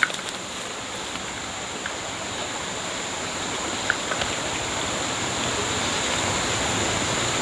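Steady rush of water, growing slowly louder.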